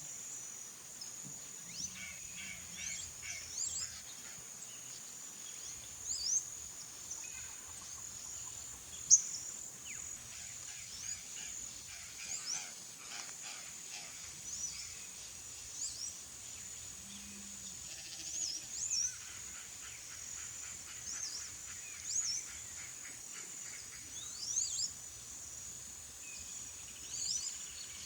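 Purplish jays giving harsh, rasping calls at intervals, over a steady high insect buzz and quick high chirps throughout.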